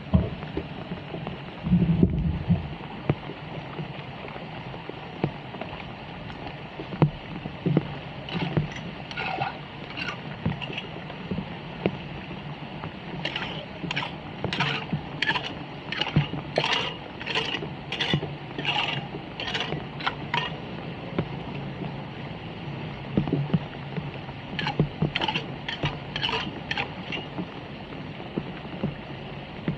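Rain and floodwater running over a storm-drain grate, with runs of rhythmic splashing, scraping strokes, about two a second, as a hooked hand tool clears debris from the grate. A low bump comes about two seconds in.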